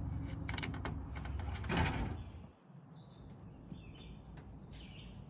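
A low rumble with a few rustles and knocks for about two seconds, then it drops away to quiet, with small birds giving several short, scattered chirps.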